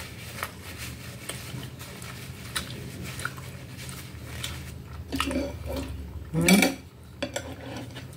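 Close-up eating sounds: chewing and lip clicks from a mouthful of firm bananada, with a paper napkin crinkling. A knife taps and scrapes against a glass plate, and a few louder mouth sounds come in the second half.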